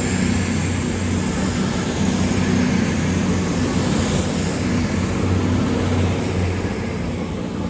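CrossCountry Voyager diesel-electric multiple unit pulling out, its underfloor diesel engines running steadily under power.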